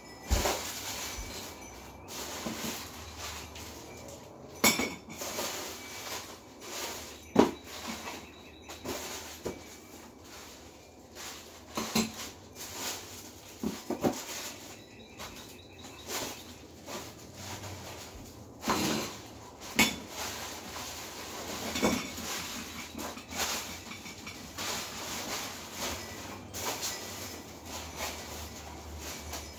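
Irregular clinks and knocks of hard household items being handled and set down, a dozen or so scattered sharp strikes over a low steady background.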